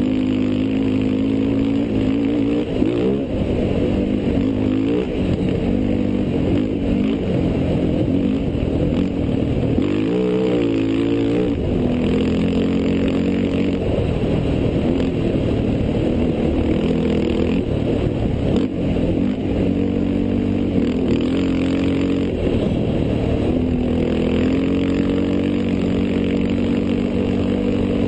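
Off-road race vehicle's engine running hard, heard from on board. Its pitch mostly holds steady but drops and climbs back a few times as it eases off and accelerates again, most deeply about ten seconds in.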